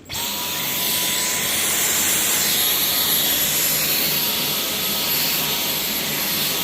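Dyson cordless stick vacuum switched on and running steadily, its motor's even rushing air noise topped by a thin, high, steady whine that rises briefly as it spins up.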